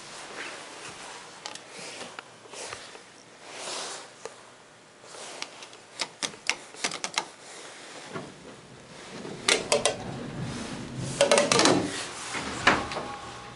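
Elevator car push-button clicking in a quick run of sharp clicks as it is pressed, followed by heavier clattering and clunks, the loudest near the end, typical of the cab doors moving and closing.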